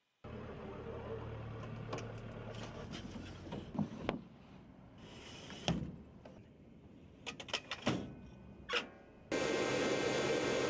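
Scattered metallic clicks and clunks of ground crew working on an AH-64 Apache's Hydra 70 rocket pod, over a low steady hum. About nine seconds in, loud steady aircraft engine noise cuts in suddenly.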